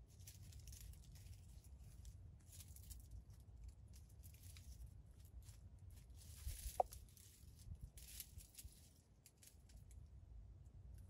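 Faint, intermittent rustling of dry leaf litter as wild jungle chickens scratch and peck on the ground, with one brief sharp sound about two-thirds through.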